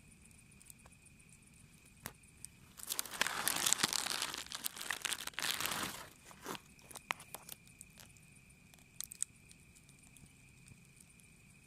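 A rustling, crunching noise for about three seconds, starting a few seconds in, followed by scattered sharp crackles, over a steady high insect trill.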